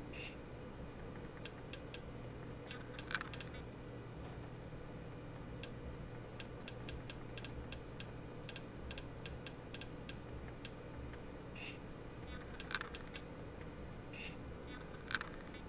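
Irregular sharp clicks of buttons being pressed to step through on-screen menus, a few of them louder clacks, over a faint steady electrical hum.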